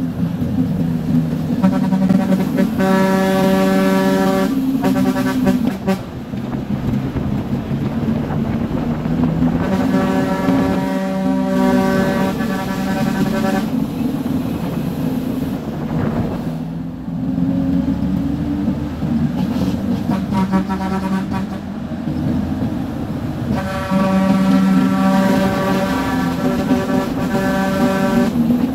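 Truck engine running under way, with the truck's horn sounding four long, steady blasts of a few seconds each.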